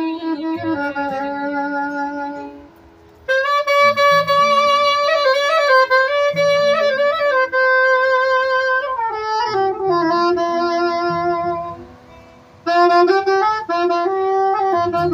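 A single-reed woodwind of the clarinet family played solo: a slow Romanian ballad melody of long held notes with quick ornaments, in three phrases broken by short pauses about three seconds in and again about twelve seconds in.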